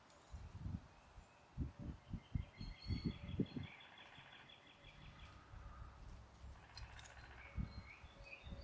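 Songbirds chirping and trilling, with gusts of wind buffeting the microphone in a run of low thumps during the first half and again near the end.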